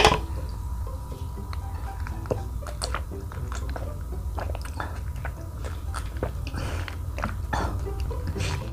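Mouth sounds of a person sipping and swallowing grape soda from a glass: wet clicks and small gulps, with a sharp click at the very start.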